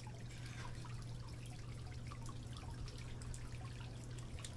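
Water dripping and trickling irregularly over a steady low hum.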